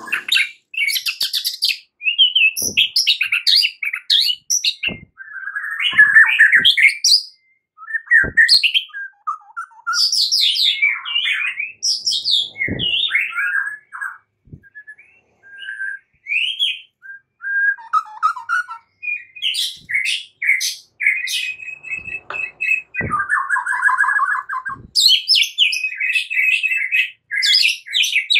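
White-rumped shama singing a varied song of clear whistles, quick chirps and rapid trills, with short pauses between phrases and a harsh buzzy rattle a little over three-quarters of the way through. A few faint soft knocks occur in between.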